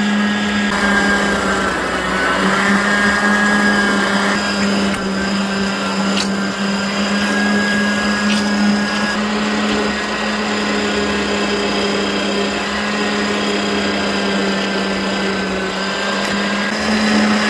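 Electric meat grinder running steadily with a constant motor hum as pike fillet is fed through it and ground into mince.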